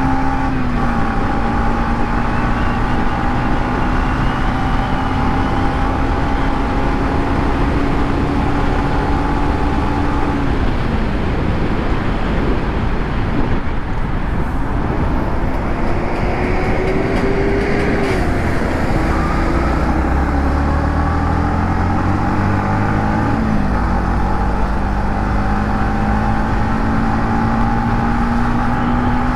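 Yamaha MT-15's 155 cc single-cylinder engine through its stock exhaust, ridden at speed. The engine note climbs slowly and drops away sharply three times, about 11, 18 and 23 seconds in, before climbing again. Road and wind noise run underneath.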